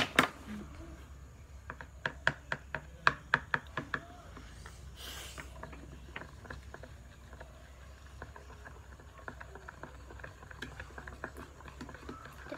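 A spoon clicking and tapping against a small plastic bowl as glue and food colouring are stirred. There is a sharp click at the start, a quick run of sharp clicks about two to four seconds in, then lighter, faster ticking.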